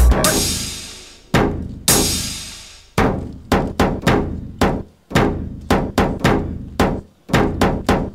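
Percussion in a piece of music. A crash rings out at the start and another about two seconds in, each fading away, then a quick, regular pattern of sharp drum strokes begins about three seconds in.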